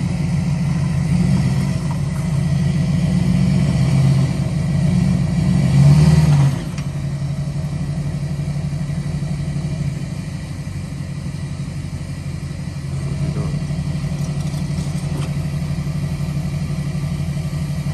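Tow truck engine running, louder for the first six seconds or so, then dropping suddenly to a steady idle.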